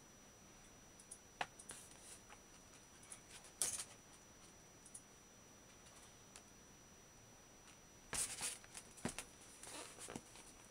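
Laptop in a hard plastic snap-on case being handled: a few faint sharp clicks and taps, the loudest about three and a half seconds in, then a short cluster of knocks and scrapes near the end as the plastic shell meets the table and hands.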